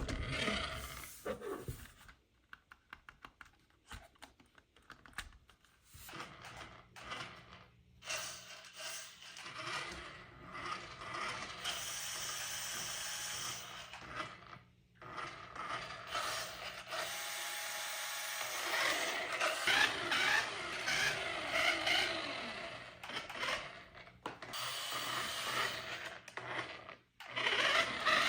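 A toy radio-control car's small electric motor and plastic gears whirring in short bursts of a few seconds, with clicking, ratcheting and scraping between them.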